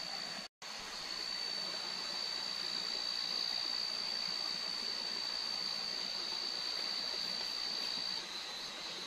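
Night forest ambience: a steady rushing hiss with an insect's continuous high-pitched trill over it, which shifts near the end.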